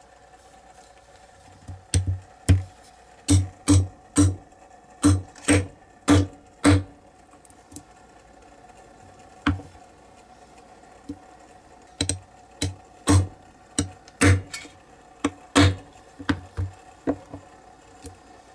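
Hammer tapping a metal punch through a silicone mould into a wooden block to cut guide holes: runs of sharp knocks about two a second, with a pause of a few seconds in the middle.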